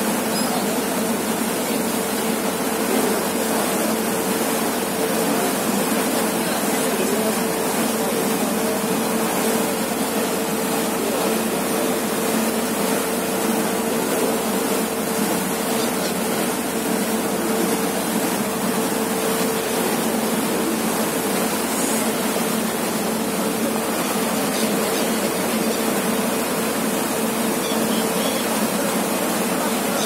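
A passenger ferry under way: a steady engine drone with a constant low hum, over the rushing of the churning wake water.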